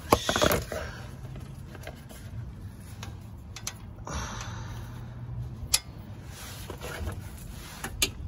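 Metal clicks and knocks of a hex tool on a gearbox drain plug being tightened: a quick cluster of clicks at the start, then single clicks later, over a steady low rumble.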